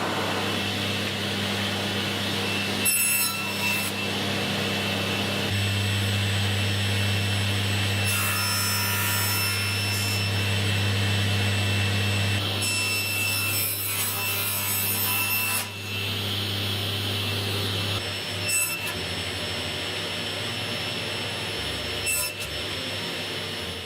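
Electric power saw running steadily and cutting wood, with several louder stretches where the blade bites into the workpiece.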